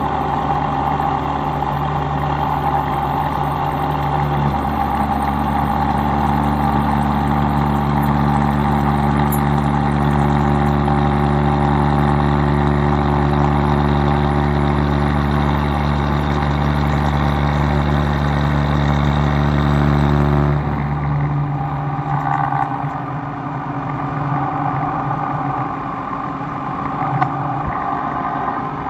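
Kearney & Trecker milling machine running with a steady hum. A second tone joins about four seconds in, and the deep hum cuts off about twenty seconds in, leaving a quieter running sound.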